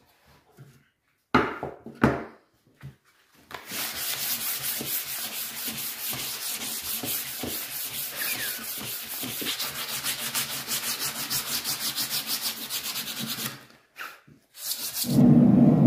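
Two knocks on the wooden workbench, then a sanding block rubbed by hand in quick back-and-forth strokes along a painted wooden board for about ten seconds. Near the end a louder steady running noise cuts in: the propane gas forge.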